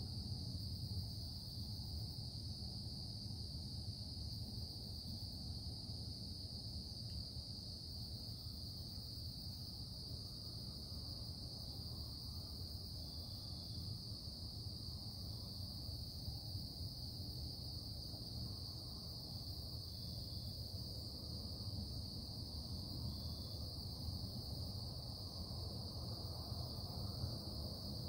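Industrial production noise: a steady low-pitched rumble with a constant high hiss above it, unchanging throughout.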